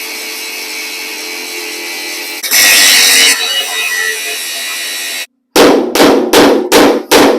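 A grinder's spinning wheel runs steadily on a rusted-on truck bed bolt, getting much louder for a moment about two and a half seconds in as it bites into the metal. After a short break, rapid sharp metal-on-metal blows follow, about three a second.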